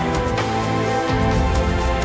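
Background music of held, sustained notes with a soft beat.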